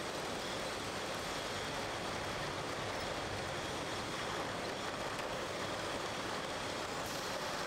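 Steady running noise of a beer bottling line, its conveyors carrying glass bottles, an even din with a faint high whine.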